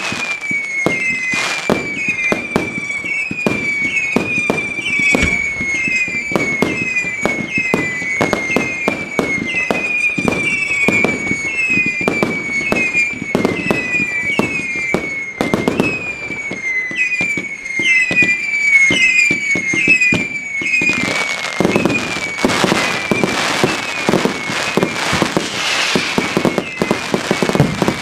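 Daytime firework batteries firing a rapid string of shots, growing denser and louder about three-quarters of the way in. Behind the shots, a short falling chirp repeats a little more than once a second.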